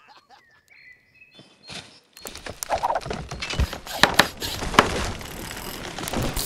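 Dry leaves and twigs on a forest floor rustling and crackling under a person scrambling and going down onto the ground, with many sharp snaps. It starts suddenly about two seconds in and stays busy.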